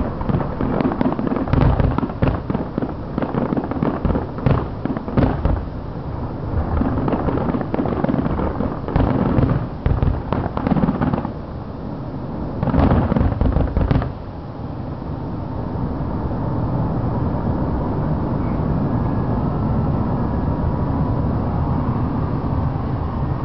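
Fireworks finale: aerial shells bursting in rapid volleys of sharp booms for about fourteen seconds, then stopping abruptly. A steady, even background noise carries on after the last burst.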